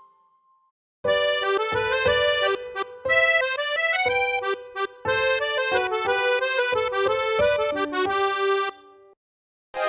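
A phone ringtone from the Honor Magic 7 Lite: a short melody of held notes in an accordion-like tone, starting about a second in and stopping a little before the end.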